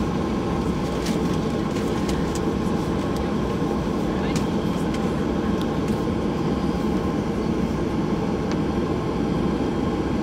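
Cabin noise of a Boeing 737-800 taxiing slowly: its CFM56 engines at low thrust, a steady rumble, with a few light clicks and rattles.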